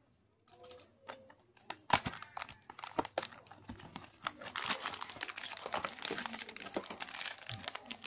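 Cardboard packaging being handled and opened, with sharp clicks and knocks about two seconds in, then a clear plastic bag crinkling steadily as it is pulled out and handled.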